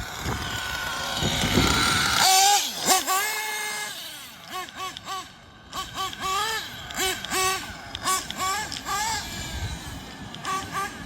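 Kyosho Inferno NEO ST 3.0 RC car's nitro engine running: a rough rising rev for the first two seconds, then a high whine that rises and falls in short throttle blips, about two a second.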